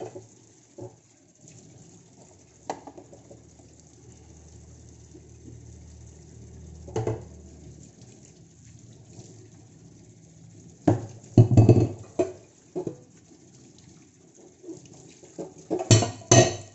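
Dishes and pots clinking and clattering, with scattered sharp knocks over a faint steady hum. Louder clatter comes about eleven seconds in and again near the end.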